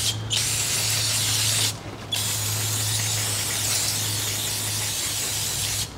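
Aerosol can sprayed through its straw into freshly tapped bolt holes in an aluminium engine front case, flushing out the tapping chips. It is two hissing bursts: a short one of about a second and a half, a brief pause, then a longer one of about four seconds.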